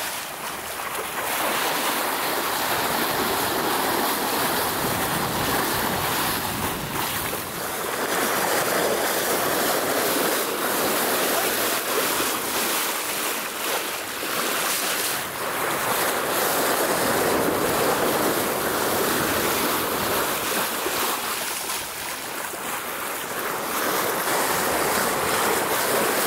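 Sea water rushing and splashing along the hull of a sailing yacht under way, with wind buffeting the microphone; the rush swells and eases every few seconds.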